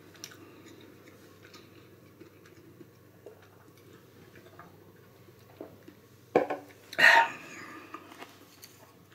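A man drinking beer from a can, with faint mouth and swallowing sounds and small clicks. About six seconds in come two short loud sounds half a second apart, the second the louder.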